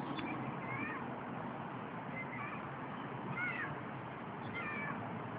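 Four short arched animal calls, about a second apart, over steady background hiss.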